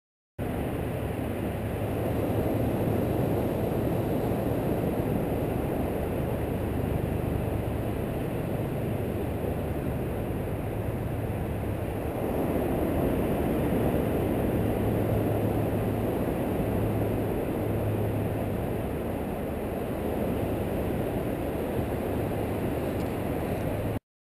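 Steady rushing beach ambience of wind and ocean surf, with a low rumble underneath; it cuts in just after the start and cuts off abruptly near the end.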